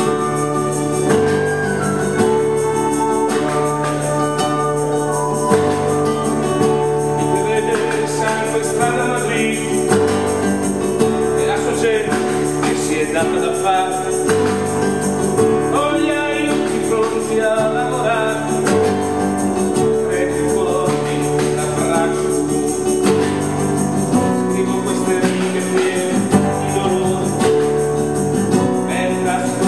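Live acoustic folk ensemble playing: steel-string acoustic guitar strummed along with violin, harp and hand percussion including tambourine.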